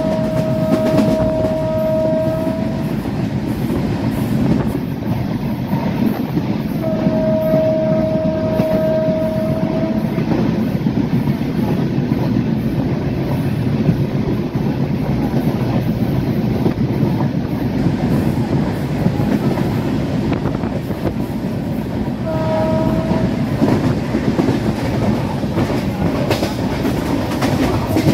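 Train running along the track, heard from aboard: a steady rumble of wheels and carriages, with the horn sounding three times on one steady note, two long blasts of about three seconds near the start and about a third of the way in, then a short blast later on.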